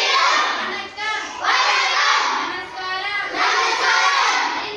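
Children's voices reciting phrases aloud in a sing-song chant, in three phrases with short pauses between them.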